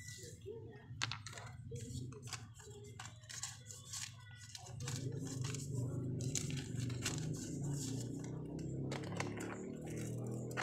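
Paper envelopes being handled and folded by hand: light crinkling and rustling with scattered sharp clicks. About halfway through, a low background murmur comes up and stays under the paper sounds.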